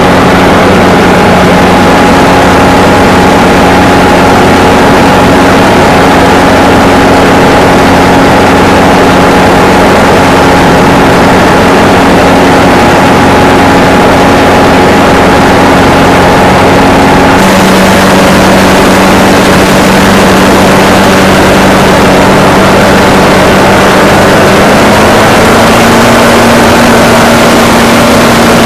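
Engine of an ultralight aircraft running steadily at low power on the ground. About two-thirds of the way through its note changes, and it climbs slightly near the end.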